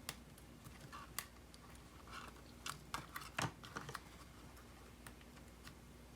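Faint small clicks and handling noises of a battery cable connector being fitted into an iPod Classic's logic board, with a handful of sharp clicks, the loudest about three and a half seconds in.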